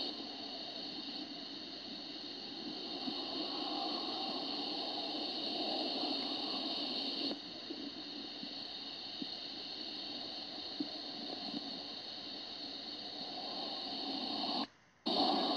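Steady background hiss with no distinct event. It shifts abruptly about seven seconds in and cuts out for a moment near the end.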